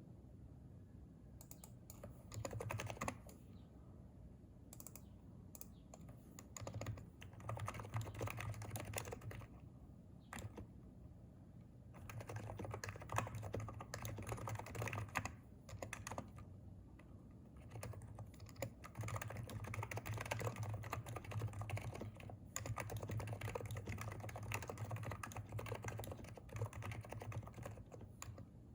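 Typing on a Hansung electrostatic capacitive (non-contact) keyboard, in fast runs of keystrokes lasting several seconds with brief pauses between them.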